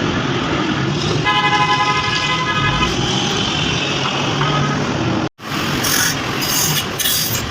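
A horn giving a held, buzzy blast of about a second over steady mechanical noise, with fainter shorter tones after it. The sound cuts out abruptly for an instant about five seconds in.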